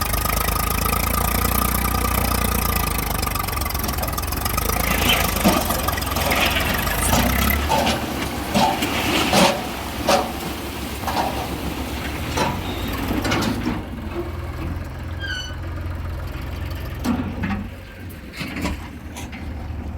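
Diesel engine of a backhoe loader or tractor running, its low hum dropping off about seven seconds in, with scattered knocks and clanks through the middle.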